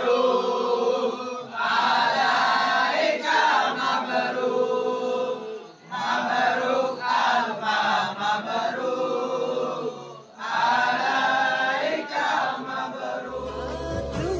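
A group of men chanting together in phrases, with short pauses between them. Backing music with a deep bass comes in near the end.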